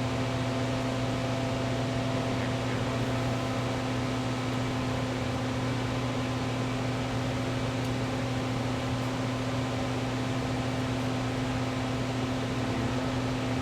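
Steady mechanical hum with a constant hiss, like a running fan or motor, unchanging throughout.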